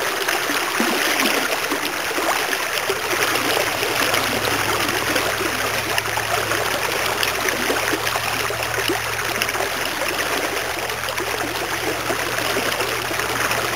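Creek current flowing past, a steady rush of water.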